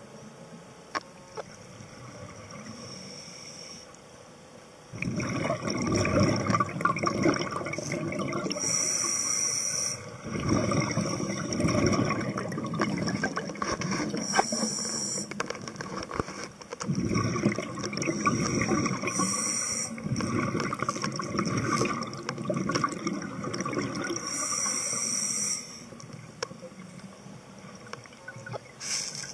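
Scuba diver breathing through a regulator, heard through the camera's underwater housing: a short hiss on each inhale, then a long, louder rush of exhaled bubbles, about one breath every five seconds.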